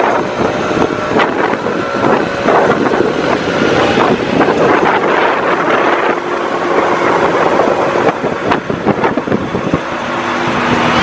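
Heavy wind rushing on the microphone at road speed over a trail motorcycle's engine running; near the end the engine's steady hum comes through more clearly.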